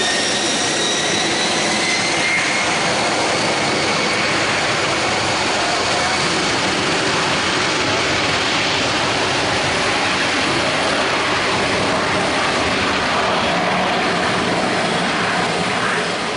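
Boeing 747-400 jet engines running at high thrust: a loud, steady roar with a whine that rises slightly in pitch over the first couple of seconds.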